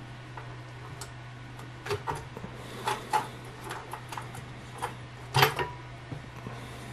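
A 3D printer's removable build sheet handled and lifted off its bed: a few scattered light taps and clacks, the loudest about five and a half seconds in, over a steady low hum.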